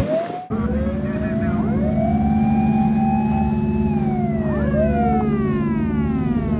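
Patrol boat sirens wailing, several overlapping, each slowly rising, holding and falling in pitch, over a steady low drone of boats running at speed. The sirens start about half a second in.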